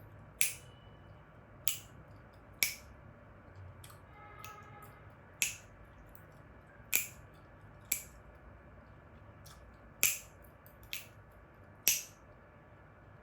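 Chewing gum snapping and cracking in the mouth: sharp, crisp pops about every one to two seconds at an uneven pace, some louder than others.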